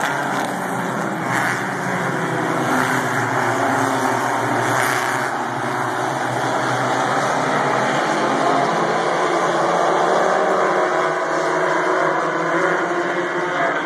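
A pack of stock cars racing on a paved short oval track, many engines running hard together in a steady, loud blend.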